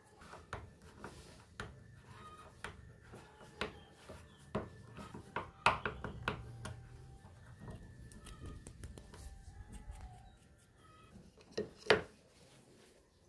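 Hand tools clicking and scraping on metal as a brass threaded insert in a hardwood block is turned in with a screwdriver and then an Allen key, with small knocks of the block against the table. A sharp knock of wood on the table comes near the end. Chickens cluck faintly in the background.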